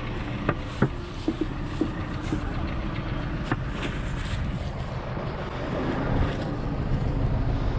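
Tractor engine running steadily, growing a little louder near the end, with a few sharp clicks in the first few seconds.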